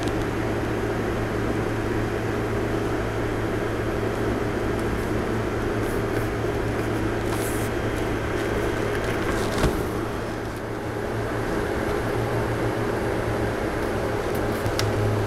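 Steady machine hum with a low drone, of the fan or air-conditioner kind, with a couple of faint clicks about eight and ten seconds in.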